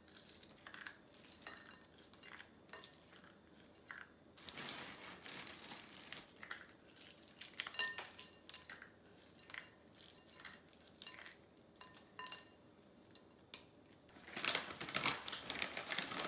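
Cashews being broken up by hand and dropped into a mixing bowl of oats and nuts: scattered small cracks and clicks of nut pieces. There is a louder stretch of rustling near the end.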